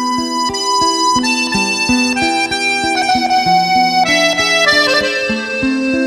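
Instrumental music: a held reed melody, harmonica-like, over evenly plucked guitar notes.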